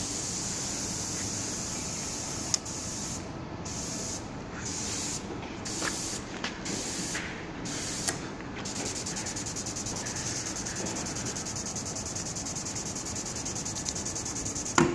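Telsonic SonoScreen SG-45-200 ultrasonic screening generator and its transducer running, a steady high hiss. From about 3 to 9 seconds in the hiss cuts out and returns about once a second, six times, then runs steady again until a sharp click near the end.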